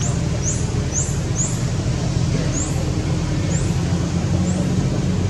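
Steady low hum of motor traffic as a car drives past, with a bird giving about seven short, high chirps, most of them in the first two seconds.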